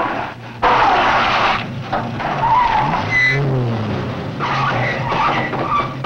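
Car tyres squealing and skidding on loose ground while the engine's note rises and falls, as a 1940s-style sedan is driven hard.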